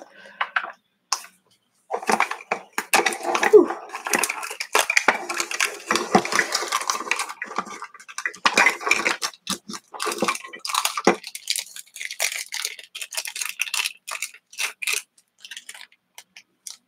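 Plastic wrappers crinkling and tearing, with hard plastic toy-capsule pieces clicking and knocking as a surprise toy ball is unpacked by hand; the crackling is densest for the first half, then thins to scattered clicks.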